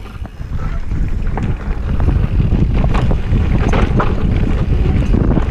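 Wind buffeting the camera microphone and mountain-bike tyres rumbling over a dirt downhill trail, with sharp clicks and rattles from the bike. It gets louder about two seconds in.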